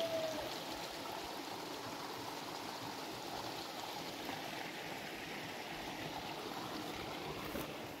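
Stream of running water, a steady even rush. A short whistled note, falling slightly in pitch, ends just after the start.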